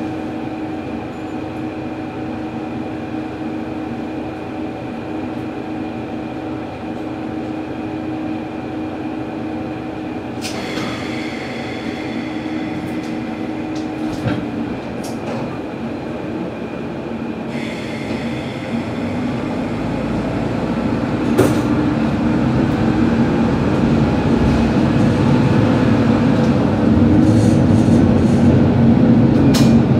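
Diesel railcar idling at a station stop with a steady hum, then its engine working harder as the train pulls away, growing louder through the second half. A higher-pitched tone sounds for several seconds midway, and there is a short clank about two-thirds of the way in.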